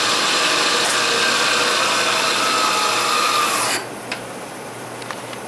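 Machine tool cutting the end of a steel flat bar, facing it off, a loud rasping cut with a steady whine. It stops abruptly about four seconds in, leaving a quieter steady hum with a couple of clicks.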